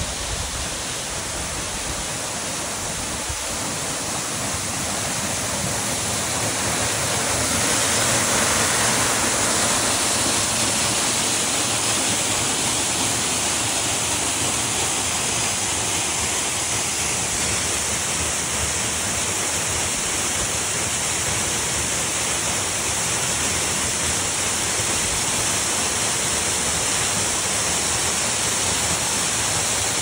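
Water of a narrow mountain waterfall pouring down a rock face and splashing, a steady rushing noise. It grows louder a few seconds in as the falling water comes closer, then holds steady.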